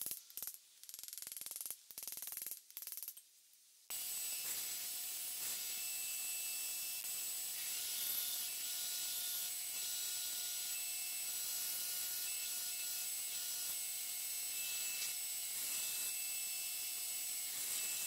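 Belt grinder running with a carbon-steel knife blade held against the belt at the platen: a steady grinding hiss over a constant whine, starting abruptly about four seconds in. Before that, a few seconds of short, broken-up noises.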